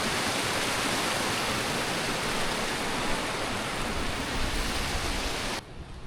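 Steady, loud rush of fast-flowing water, which cuts off suddenly near the end, leaving a much quieter low rumble.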